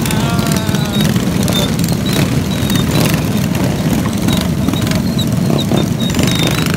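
Minibike engines running as a group, a steady rumble with scattered knocks and rustles from the phone being handled.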